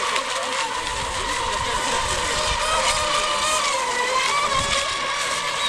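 Several electric RC racing boats (NAVIGA ECO Expert class) running flat out, their motors and propellers giving overlapping high whines whose pitch slowly rises and falls as the boats race and turn.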